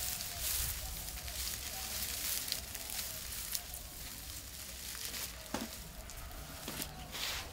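Long grass stalks rustling and crackling as they are twisted and wrapped by hand into a tight bundle, with a few sharper snaps of stems.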